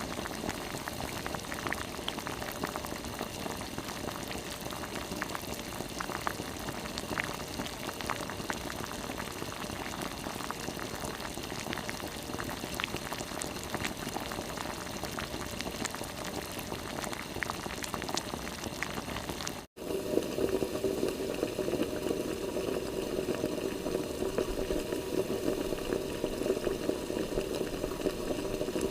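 Water bubbling at a boil, with many small irregular pops. About twenty seconds in it cuts off abruptly and a different, louder and steadier water sound takes over.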